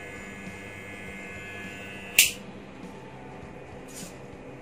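Wahl Legend corded hair clipper running with a smooth, steady hum, then a sharp click about two seconds in as it is switched off, after which its higher whine fades away.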